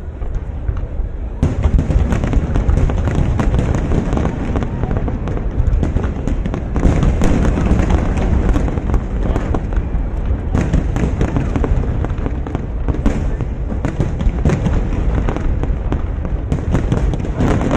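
Aerial firework shells bursting in a continuous barrage, many booms overlapping with sharper bangs, the barrage growing denser about a second and a half in.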